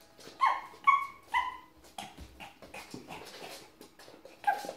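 A dog barking: three short, high barks about half a second apart, then one more near the end, with scattered taps and knocks on the floor in between.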